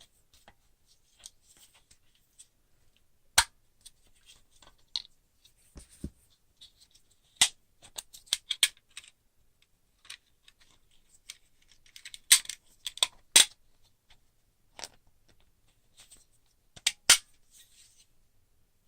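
Irregular sharp clicks and taps with light scraping: a small tool working on a Glock pistol part. The clicks come in small clusters, the loudest bunched together about two-thirds of the way through and again near the end.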